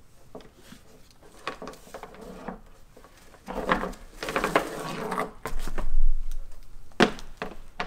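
Handling noise from unpacking laptop power supply bricks: scattered clicks and knocks, a burst of rustling packaging in the middle that is the loudest part, and a sharp click near the end.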